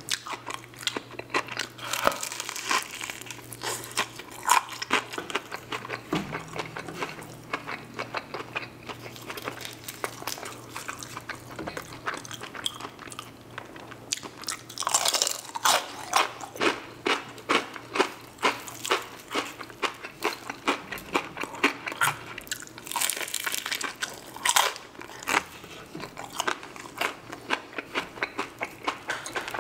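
Close-miked chewing and biting of crispy Jollibee fried chicken: dense irregular crunches and wet mouth sounds, with the loudest crunchy bites about halfway through and again at around three-quarters.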